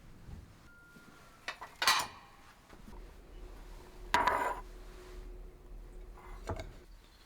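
Kitchenware clattering: a few sharp knocks and clinks of dishes or utensils, the loudest about two seconds in and another cluster about four seconds in with a brief ring, then a lighter knock near the end.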